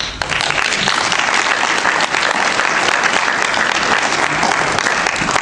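Audience applauding: many people clapping steadily in a hall.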